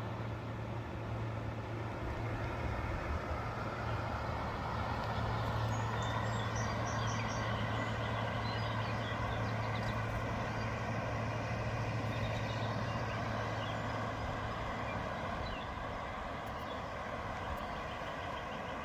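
A motor vehicle driving at a steady speed: a low, even engine hum under constant road noise.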